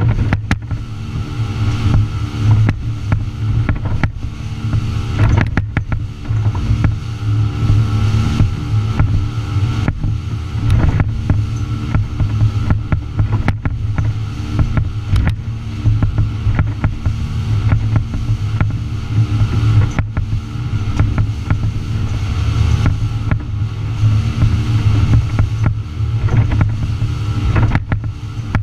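Outboard engines of a Mako 261 center-console boat running steadily at speed, with the hull slapping irregularly against the chop and wind and spray rushing past.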